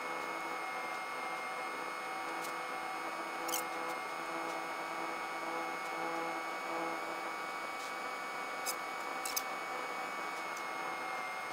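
Steady hiss with a thin, high electrical whine and fainter hum tones beneath it, broken by a few brief clicks.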